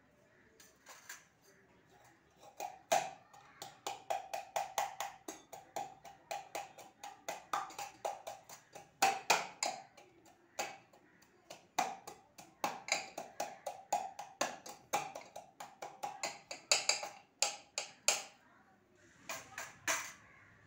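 Wooden rolling pin pounding raw tamarind and green chilli in a stainless-steel mug: rapid knocks, about three a second, each with a short metallic ring from the mug.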